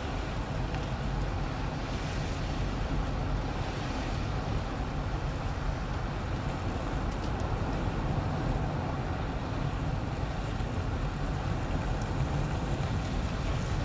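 Steady road noise of a car driving on a snowy road: a low rumble with an even hiss above it.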